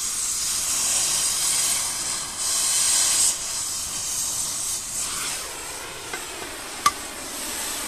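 Oxy-propane cutting torch hissing steadily as it cuts through steel, the hiss growing louder for about a second midway. A single sharp click near the end.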